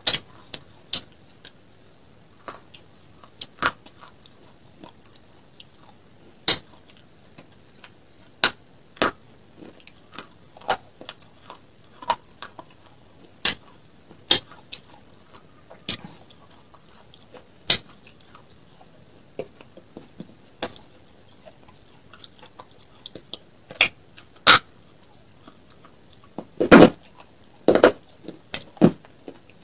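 Close-miked biting and chewing of brittle grey slate-like mineral pieces: sharp, separate crunches and snaps every second or two, coming louder and closer together near the end.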